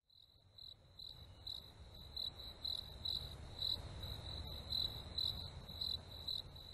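Faint crickets chirping steadily, about two high chirps a second, over a low rumble.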